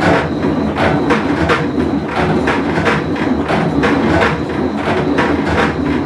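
Whirlpool Cabrio top-load washing machine running mid-cycle: a steady rumble with a rhythmic clatter of about three to four knocks a second. The machine has a bad bearing.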